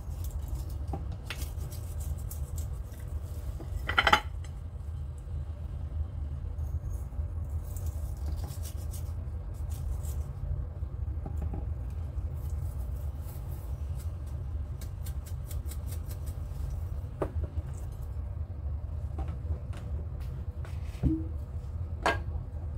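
Light clicks and taps of kitchen handling as raw pork spare ribs are turned and seasoned on a ceramic platter on a stone counter, with one louder clink about four seconds in. A steady low rumble runs underneath.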